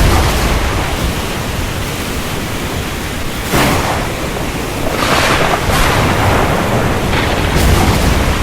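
Heavy rain falling as a loud, steady hiss that swells several times, over a low rumble.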